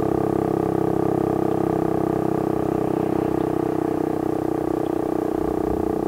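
Federal Signal STL-10 outdoor warning siren sounding its full-alert signal: one loud steady held pitch with overtones.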